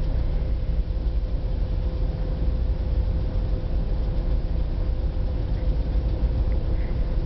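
A ferry's engines running steadily, heard on board behind a window: a deep, even rumble with a faint steady hum above it.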